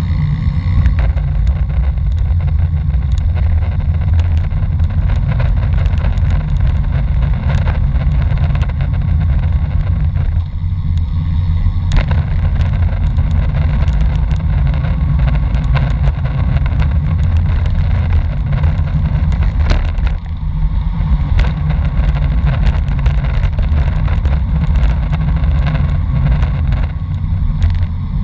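Wind buffeting the microphone of a camera riding on a bicycle during a fast road descent: a loud, steady low rumble, with frequent clicks and rattles from the bike on the rough road surface.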